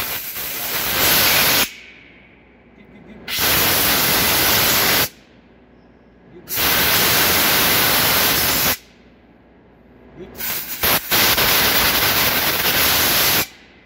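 Compressed air from an air hose blowing through a cleaned solenoid valve in four loud hissing blasts, each lasting a second or two with short pauses between them; the last one sputters briefly before it runs steady. The air passing through is the test that the cleaned valve is clear.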